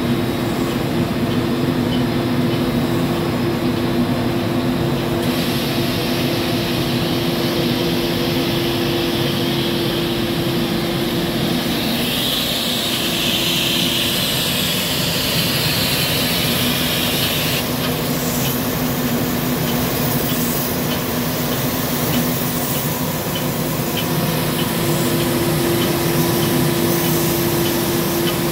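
Linden Sandingmaster SA-3200-1350 wide-belt sander running, a steady mechanical hum and whir. A hiss comes in about twelve seconds in and stops about five seconds later.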